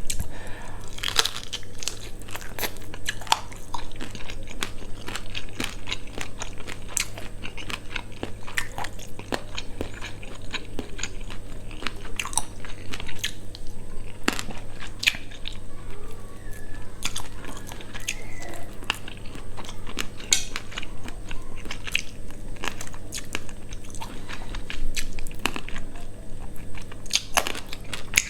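Close-miked eating: irregular crunching and biting with wet chewing, as small quail bones and meat are bitten and chewed, over a steady low hum.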